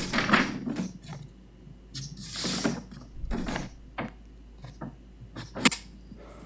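Low room noise with soft rustles and scattered light clicks, and one sharp click near the end.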